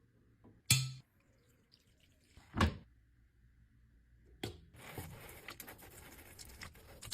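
Handling and cleaning noises at a washing machine: two sharp knocks about a second apart, then a clunk followed by a few seconds of scratchy hissing.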